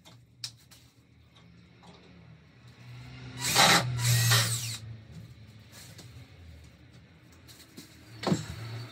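Cordless drill driving a screw into a wooden shelf upright: two loud bursts of the motor about three and a half seconds in, its pitch rising and falling under load, then a brief whir that winds down near the end.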